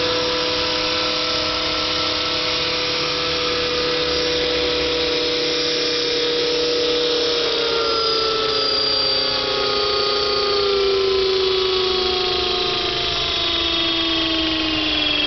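Align T-Rex 450 electric RC helicopter's brushless motor and rotor whine, steady at first, then falling steadily in pitch through the second half as the rotor spools down with the model settled on its pad.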